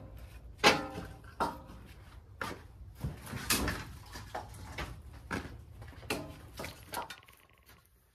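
Split firewood pieces knocking against each other as they are stacked into a bundle: about a dozen hollow wooden clunks at an uneven pace, the loudest one about a second in, tapering off near the end.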